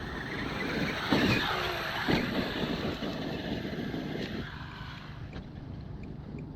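X-Maxx RC monster truck running across frozen, ice-glazed ground, its electric drive and tyres making a steady noisy sound, with two sharp knocks about one and two seconds in. The sound drops away after about four and a half seconds.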